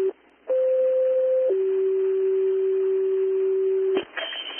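Fire dispatch alert tones over a scanner radio. A steady low tone breaks off briefly, then a higher tone sounds for about a second, then the low tone holds for about two and a half seconds, the alert that comes before a new dispatch. Radio hiss and crackle take over near the end.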